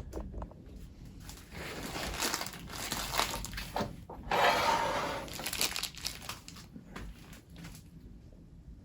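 Irregular rustling and crinkling handling noise that comes and goes in bursts, loudest about four and a half seconds in.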